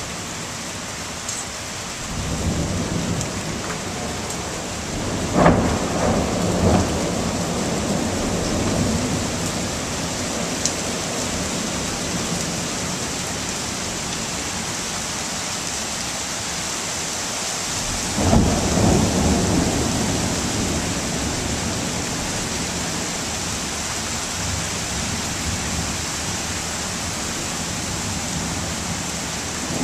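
Steady rain falling through a thunderstorm, with two rolls of thunder. The first builds about two seconds in, cracks sharply twice between five and seven seconds, and rumbles on for several seconds. The second breaks suddenly about eighteen seconds in and rumbles away over the next few seconds.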